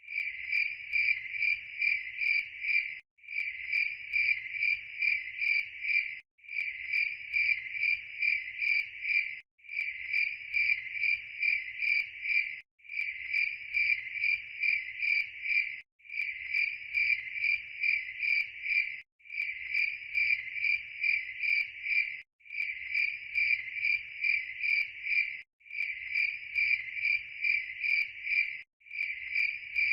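Crickets chirping in a steady, even pulse of about two or three high-pitched chirps a second. The same three-second stretch repeats with a brief dropout between each repeat, as a looped recording does.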